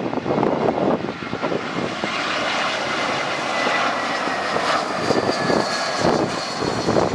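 Jet airliner's engines roaring as it passes close by, with a thin whine that falls slightly in pitch.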